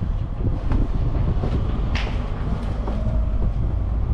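A bicycle wheeled down a concrete stair ramp: its parts rattle and tick with small knocks, one sharper knock about two seconds in, over a steady low rumble of wind on the microphone.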